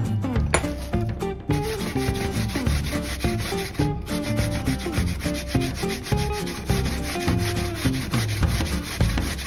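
Peeled daikon radish rubbed back and forth on a hand grater: a quick, even run of rasping strokes that starts about a second and a half in.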